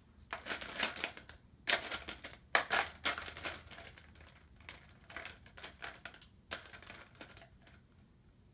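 Felt-tip markers clattering against each other as a hand drops them into a cup and rummages through it. The rattling is busiest in the first few seconds, then comes in fewer, lighter bursts.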